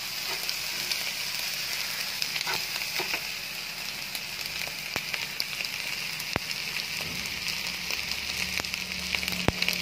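Fried rice sizzling steadily in a frying pan, with a few sharp clicks of a metal spatula against the pan as the rice is stirred.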